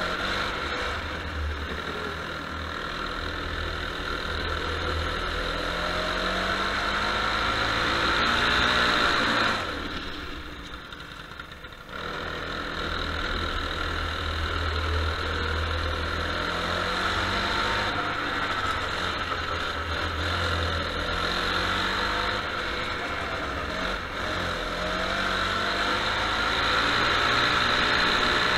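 Go-kart engine heard from on board during laps of a wet track, its pitch rising and falling as the throttle is worked through the corners. About ten seconds in, the engine drops off sharply for two seconds as the throttle is lifted, then picks up again.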